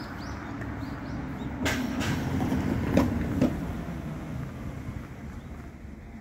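Low, steady rumble of road traffic that swells as a vehicle passes about two to three seconds in, with two short knocks near the middle.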